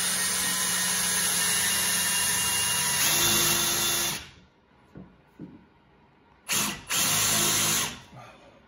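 Brushless cordless drill running steadily as it bores a countersink hole into a door jamb, then stopping about four seconds in. After a couple of light knocks, the drill gives a second short run of about a second and a half near the end.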